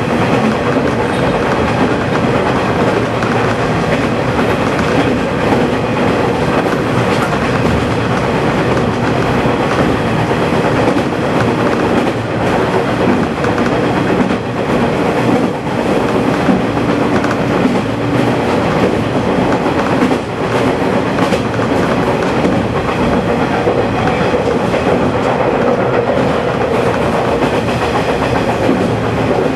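KiHa 120 diesel railcar running at speed, heard from the cab: a steady diesel engine and running-gear drone, with the wheels clicking now and then over rail joints.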